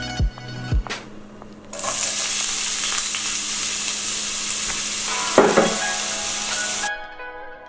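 Chopped onion sizzling in hot oil in a frying pan, the sizzle starting abruptly a couple of seconds in as the onion hits the oil and holding steady. A brief knock comes a little past five seconds in, and the sizzle cuts off sharply near the end.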